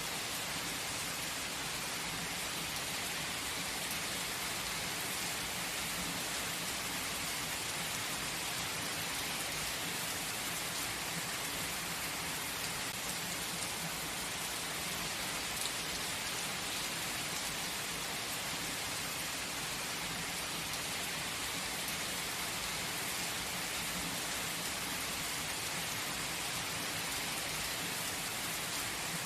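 Steady, gentle rain: an even hiss of drops falling on a surface, with a few scattered individual drop ticks.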